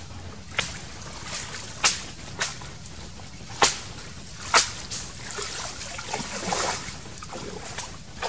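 Water splashing and sloshing as a woven basket is dipped and swished in a shallow stream: a string of sharp splashes, then a longer stretch of sloshing about six seconds in.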